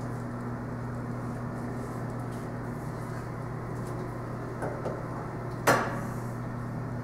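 Steady low electrical hum with a hiss of fan noise from laboratory equipment, and a few light clicks followed by one sharp knock near the end.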